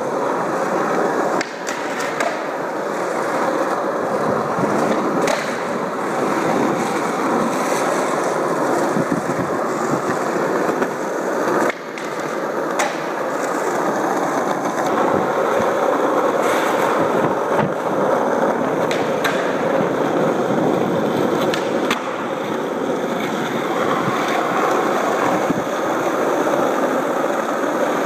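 Skateboard wheels rolling steadily over asphalt, broken by repeated sharp clacks of the board popping and landing tricks.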